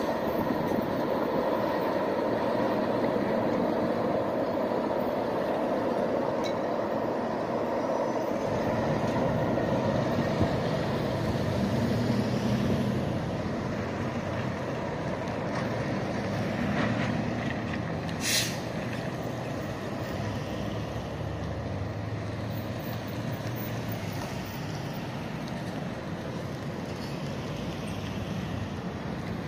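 Road vehicles crossing a railroad grade crossing, a box truck and then cars, engines running steadily, with one short, sharp hiss of a truck's air brakes about eighteen seconds in.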